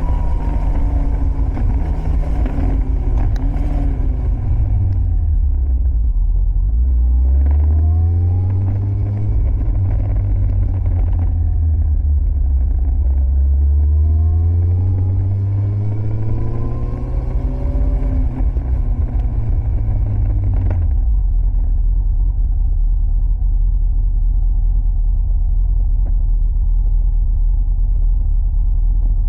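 Carbureted inline-four engine of a Yamaha 1000 Fazer breathing through a Scorpion aftermarket exhaust, revving up and down through long pulls and decelerations. About two-thirds in, the sound changes abruptly to a steady low rumble.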